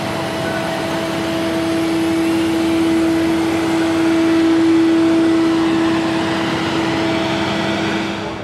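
Steady mechanical hum from a running machine: one constant mid-pitched tone with fainter steady tones above and below, over an even rushing noise.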